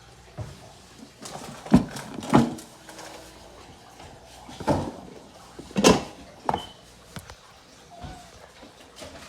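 About six separate knocks and thumps of kitchen things being handled and set down, the loudest close together about two seconds in and another near six seconds.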